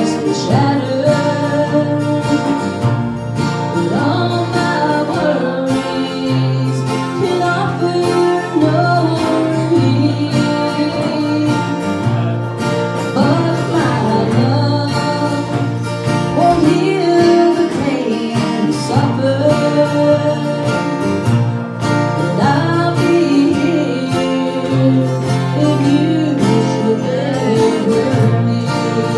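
Live acoustic music: a woman singing a song into a microphone, accompanied by strummed acoustic guitars.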